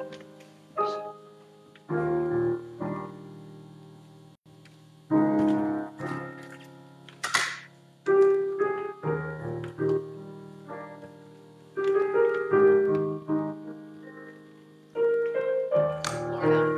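Piano playing slow chords, each struck and left to ring and fade before the next.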